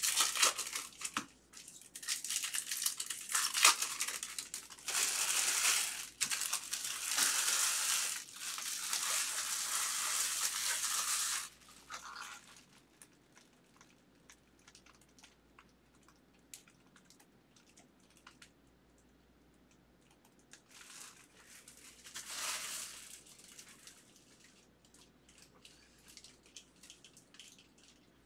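Trading-card pack wrappers being torn open and crumpled, in several bursts of crinkling through the first dozen seconds and once more about twenty-two seconds in. Between them, faint light clicks of cards being handled.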